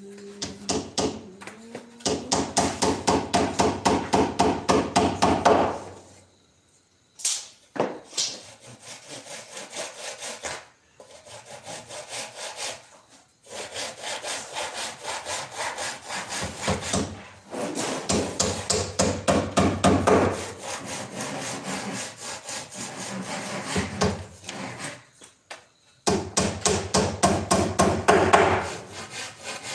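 Handsaw cutting through wood in rapid back-and-forth strokes, about three a second, in several runs separated by short pauses.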